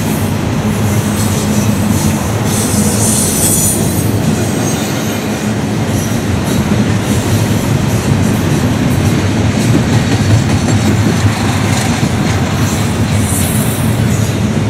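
Double-stack intermodal freight train rolling across a steel girder bridge, a steady loud rumble of wheels on the rails. A high hiss swells over it twice.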